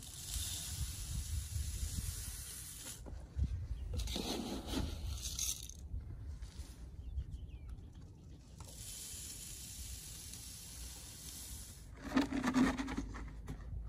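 Chicken feed poured from a can into the top of a PVC pipe feeder, a hissing rush of grain sliding down the pipe for about three seconds, then a second pour a little after the middle. Rustling and clattering of the can and feed bucket come in between and again near the end.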